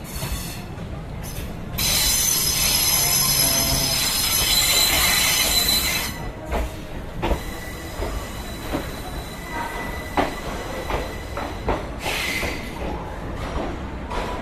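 DEMU train's wheels squealing on the rails, loud and high-pitched for about four seconds starting about two seconds in. After that the train runs on more quietly, the wheels knocking over rail joints, with a shorter squeal near the end.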